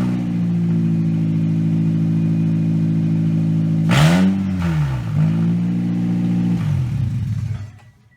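2007 Pontiac Vibe's four-cylinder engine idling loud, blowing out of an exhaust manifold joint that has come apart, its two bolts, springs and donut gasket gone. The engine revs once, quickly, about four seconds in, settles back to idle, and is shut off near the end.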